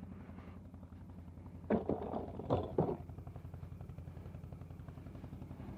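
CFMoto CForce 800 ATV's V-twin engine running steadily at low revs, with a few short clatters about two to three seconds in.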